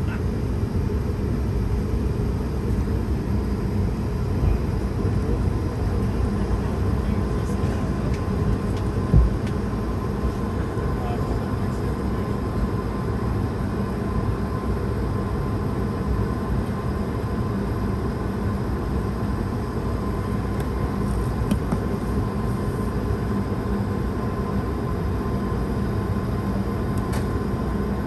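Airbus A220-300 cabin noise while taxiing, heard from a window seat beside its Pratt & Whitney PW1500G geared turbofan: a steady low rumble of the engines at idle with a faint steady whine. A single thump about nine seconds in.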